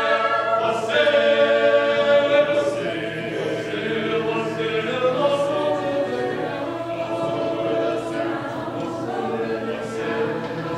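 Mixed choir singing unaccompanied in harmony, holding sustained chords; fuller and louder for the first couple of seconds, then softer.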